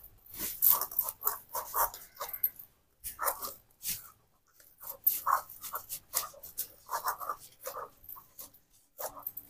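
Hand kneading soft cooked rice-flour dough in a steel pan: irregular short squishing strokes as the fingers press and fold the dough, with some scraping against the metal.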